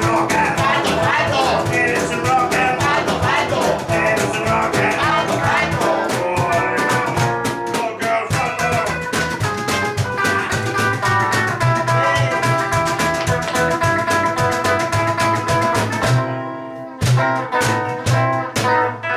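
Live band music: a man singing over a hollow-body electric guitar in the first few seconds, then an instrumental guitar passage. About sixteen seconds in the music drops away briefly, then comes back with hard accented strokes.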